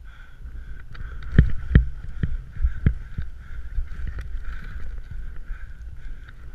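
Skiing down a steep run: wind rushing over the microphone, with a string of sharp knocks and thumps from the skis on the snow, the loudest pair about a second and a half in.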